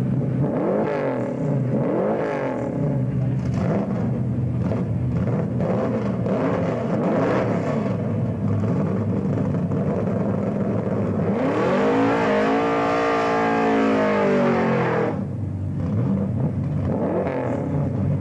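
Drag car's engine revving in short blips at the start line, then held high for about three seconds as it spins its rear tyres in a smoky burnout, the pitch rising and then falling away.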